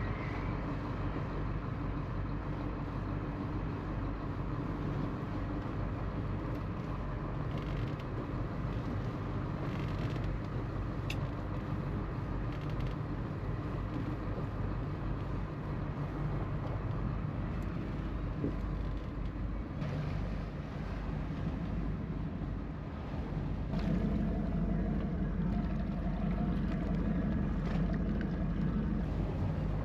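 Small fishing boat's engine running steadily under way in choppy water. Its note grows louder and stronger about three-quarters of the way in.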